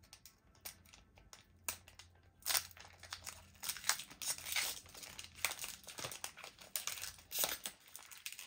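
Foil wrapper of a Pokémon TCG booster pack crinkling and tearing as it is opened by hand, with irregular crackles throughout.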